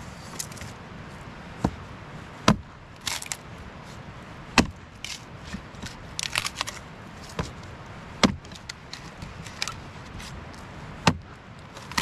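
Axe chopping and splitting a cedar log into kindling: four sharp chops a couple of seconds apart, the loudest near the end, with lighter knocks and crackly rustling of split wood between them.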